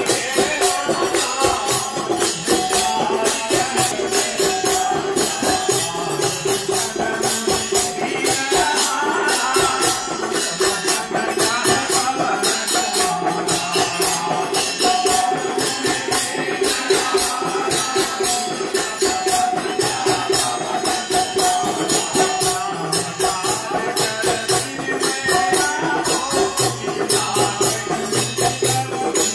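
Hindu devotional music: sustained harmonium tones over a fast, steady jingling rhythm of hand percussion keeping time.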